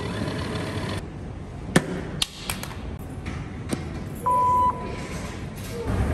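A coffee machine pouring, then a few sharp clicks. About four seconds in, an OV-chipkaart check-in reader gives one short, steady, high beep as a card is held against it, registering the check-in. Near the end a low rumble starts, from a moving escalator.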